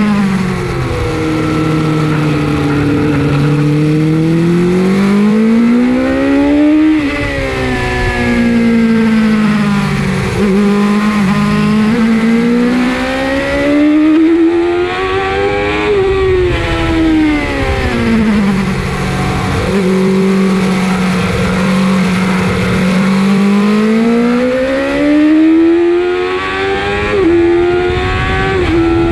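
Suzuki GSX-R750 SRAD's inline-four engine heard on board at speed, revs climbing and dropping several times as it accelerates and slows through the corners, holding steady for a few seconds past the middle.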